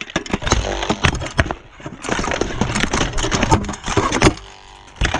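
Steel plate armour clanking and rattling in a rapid run of knocks and scrapes during armoured sword sparring, close to a camera worn on the armour; it eases off briefly near the end.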